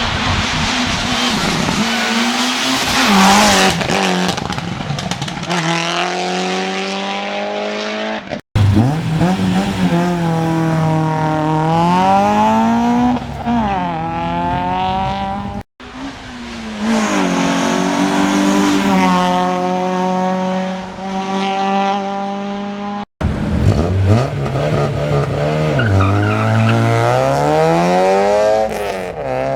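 Hill climb race cars accelerating hard past the track side, one after another. Each engine's pitch climbs and then drops sharply as the car shifts gear. The sound cuts off abruptly three times as one car gives way to the next.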